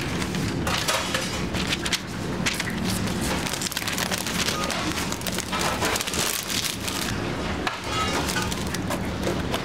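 Paper wrapper rustling and crinkling in quick, irregular crackles as it is folded around a burger by hand, over a steady low hum.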